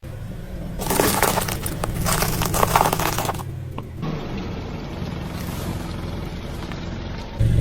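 Crackling, crunching noise lasting about two and a half seconds, over a steady low hum.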